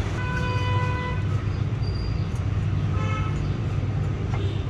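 A vehicle horn toots twice: a one-second toot near the start, then a shorter one about three seconds in, over a steady low hum.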